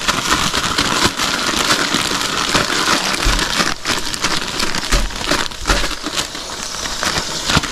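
Plastic zip-top bag crinkling and rustling as raw chicken thighs are shaken and worked around inside it to coat them in dry spice rub.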